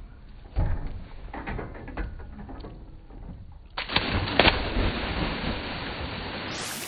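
A thump on wooden dock boards, then water splashing, loud and churning from about four seconds in, as a child jumps into a lake and splashes about.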